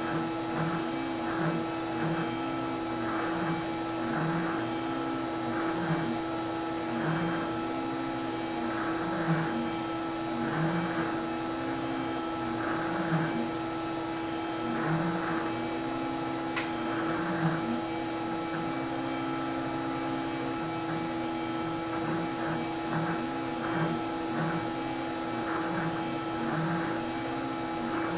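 Water-cooled CNC router spindle running at a steady high pitch while the closed-loop stepper motors whine, their pitch repeatedly rising and falling as the axes speed up and slow down through a test program, with no cutting.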